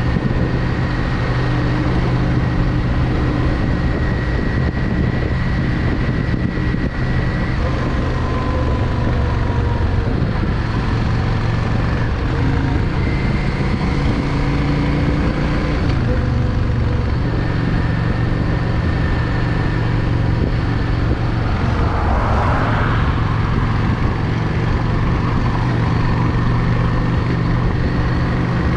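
Yamaha XVS650 Drag Star's V-twin engine running under way at a steady road pace, with its note shifting a little a couple of times as the throttle changes.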